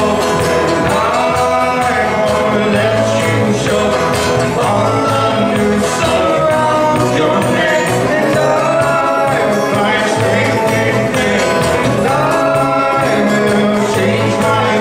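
Live acoustic folk-rock band playing: acoustic guitars and keyboard, with several voices singing over them.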